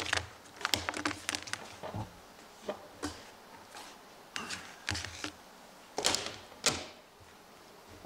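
Handling noise on a wooden workbench: irregular clicks and knocks as plastic parts and electrical cords are picked up and set down, with two louder knocks about six seconds in.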